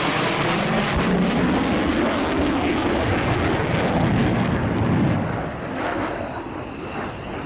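Jet noise of a Mitsubishi F-2 fighter's single F110 turbofan as it flies past, loud at first, then falling off about five seconds in as the jet moves away.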